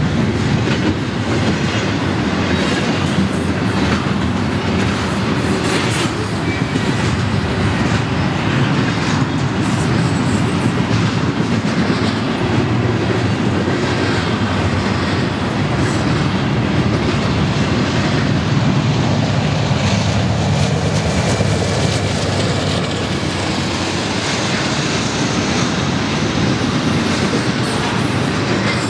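Double-stack intermodal freight train rolling past close by: a steady, loud rumble of steel wheels on rail, with the clickety-clack of wheels over rail joints.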